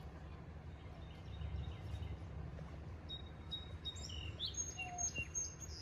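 Birds singing in the riverside trees: high whistled notes, some held steady and some short chirps and glides, starting about a second in, over a low steady rumble.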